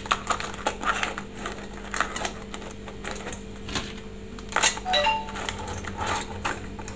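Hard crab shells and claws clicking and knocking against a plate as raw mud crabs are packed in for steaming: a scatter of light, irregular clicks over a steady low hum.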